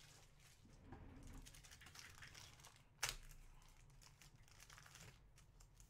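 Faint rustling of trading cards and plastic card sleeves being handled, with one sharp snap about three seconds in.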